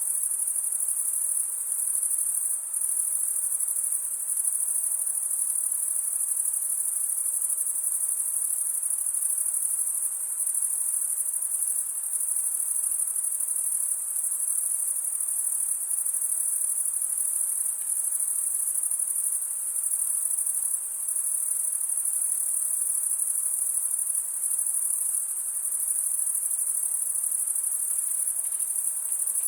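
Dense, unbroken chorus of insects, a steady high-pitched shrill that holds an even level, over a faint low background hiss.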